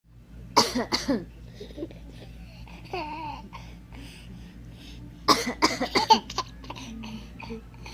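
A woman coughing: two sharp coughs about half a second in, then another run of coughs about five seconds in. Between and after them a baby laughs and squeals.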